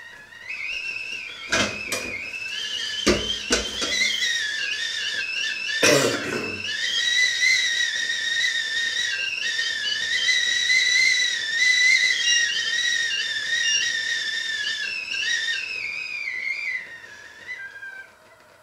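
Stovetop whistling kettle whistling at the boil: a loud, steady high whistle that wavers slightly, then drops in pitch and fades near the end. A few sharp knocks in the first six seconds.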